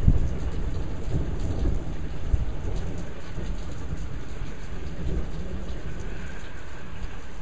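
Steady rain with thunder rumbling away over the first second or two, leaving rain alone.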